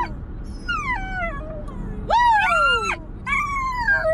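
A dog howling in three drawn-out calls, each sliding down in pitch.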